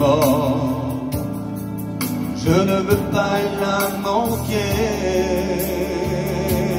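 A man sings a gospel hymn into a microphone, holding long notes with vibrato, over a steady keyboard accompaniment.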